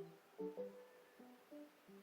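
Faint music: a few soft plucked notes, one after another, each fading away.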